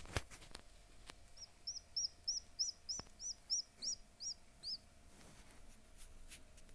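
Newly hatched Appenzeller chick peeping: a run of about eleven short, high peeps, each rising then falling, about three a second, stopping after a few seconds. A couple of sharp clicks come right at the start.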